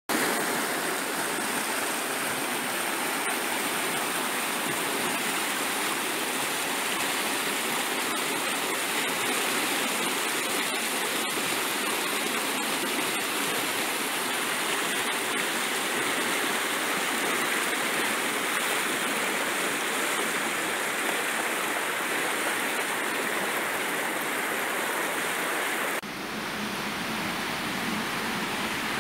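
Munzur River mountain water rushing steadily over rocks and through rapids. About three seconds before the end the rush shifts abruptly to a deeper one as the water changes.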